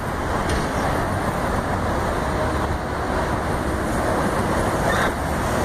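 Steady roadway traffic noise, an even rushing from passing vehicles.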